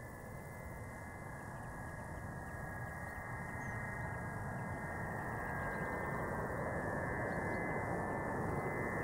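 Ilyushin Il-76 jet transport on landing approach, its four turbofan engines heard as a steady rushing noise with a high whine, growing gradually louder as it comes closer.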